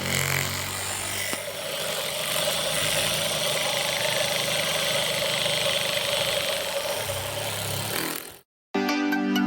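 Small electric motor running with a steady whine over a broad hiss, cutting off abruptly near the end.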